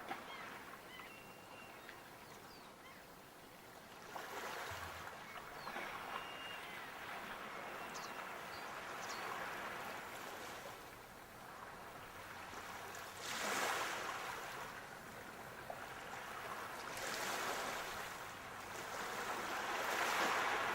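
Sea waves washing ashore: a steady hiss of surf that swells four times as waves break, the loudest about 13 seconds in and near the end.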